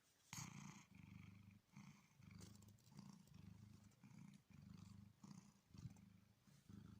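Domestic cat purring faintly, a low rumble that swells and breaks with each breath in and out.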